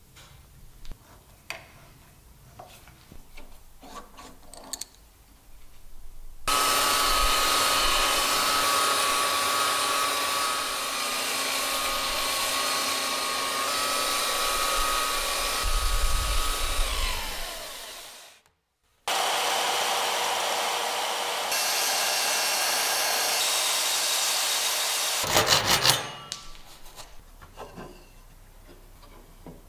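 Light scratching strokes of hand-sanding a wooden board with folded sandpaper. About six seconds in, an electric belt sander starts sanding wood with a loud, steady whirr; it winds down with falling pitch, is briefly cut off, then runs again until a few seconds before the end. Faint wooden knocks follow.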